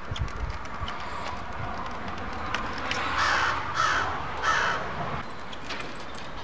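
A bird cawing three times in quick succession, about three to four and a half seconds in, over a low rumble.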